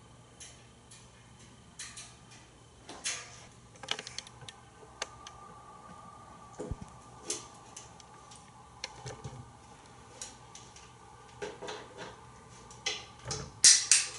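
African grey parrot rummaging through plastic and wicker toys in a wooden kitchen drawer: scattered clicks, knocks and light clatters, with a louder, sharper clatter near the end.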